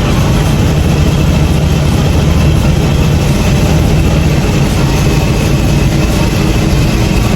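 1981 Chevrolet Camaro Z28's V8 engine running loud and steady with a deep exhaust rumble as the car drives off.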